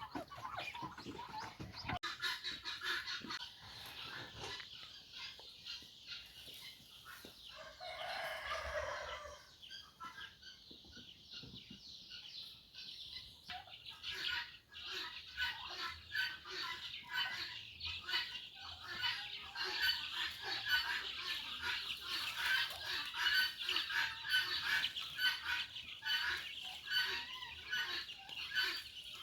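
A flock of chickens clucking and chirping without pause, busier and louder in the second half, with one louder drawn-out call about eight seconds in.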